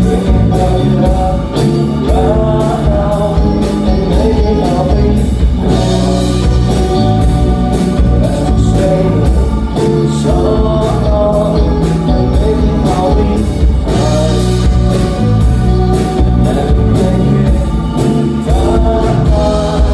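Live band playing a song with a singer over a steady drum beat.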